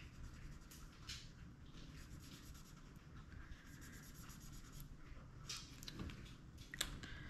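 Marker scratching on paper as small boxes are coloured in, faint and steady, with a couple of sharper ticks near the end.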